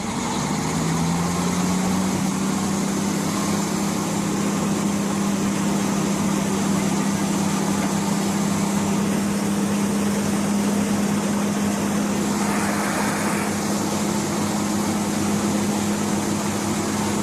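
Heavy machine's engine revving up over the first second, then running at a steady high speed under load. A brief rushing hiss comes about two-thirds of the way through.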